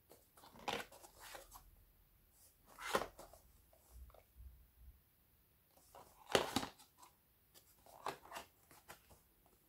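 A cardboard phone box being turned over in the hands: soft scrapes and taps of fingers and box edges on the cardboard, in short scattered bursts. The loudest come about three seconds in and again past six seconds.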